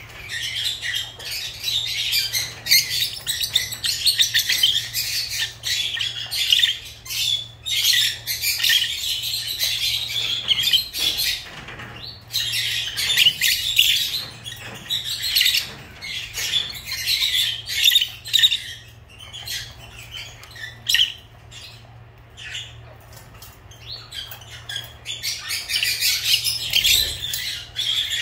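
Lovebirds chattering: rapid, busy high-pitched chirps and squawks, easing off for a few seconds about two-thirds of the way through before picking up again, over a faint steady low hum.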